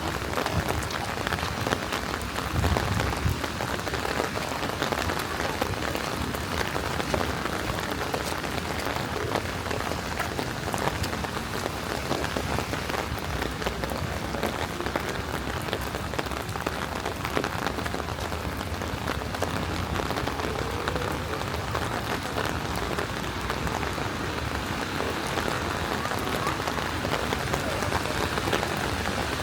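Steady rain falling, a dense patter of individual drops over an even hiss.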